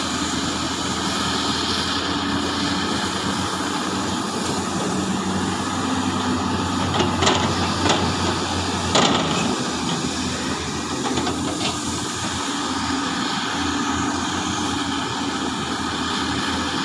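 Large excavator's diesel engine running steadily under work, with three or four short sharp knocks in the middle.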